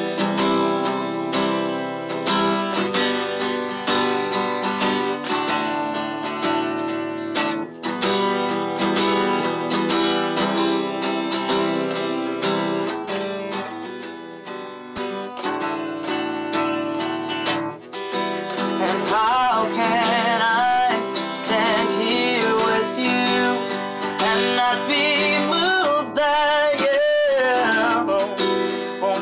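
Acoustic guitar strummed in a steady rhythm through an instrumental stretch of a worship song. About two-thirds of the way in, a voice comes in over it, singing a wordless, wavering melody.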